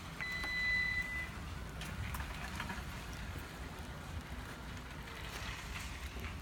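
2017 Toyota Sienna power liftgate closing: one steady electronic warning beep about a second long as the close button is pressed, then the gate running down with a few light clicks.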